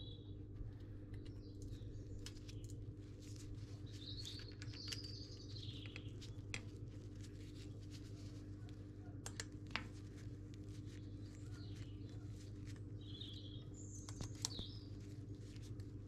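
Faint small-bird chirps over a steady low hum, with a few sharp clicks of a hex key and metal parts as a disc brake caliper is bolted to the frame. The clicks are loudest about ten seconds in and near the end.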